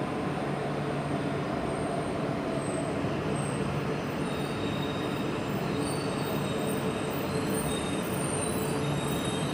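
E4 series double-deck Shinkansen entering the platform and slowing to a stop: a steady running rumble, with short high-pitched brake and wheel squeals that grow more frequent toward the end.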